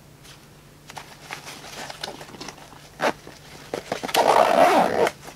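Backpack zipper pulled shut along the top pocket in one long pull of about a second, near the end, after some quiet rustling of the pack's fabric and a couple of light clicks.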